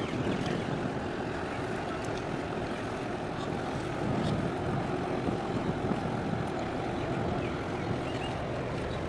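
Steady rumble of a small boat under way, with water rushing along its hull and wind buffeting the microphone.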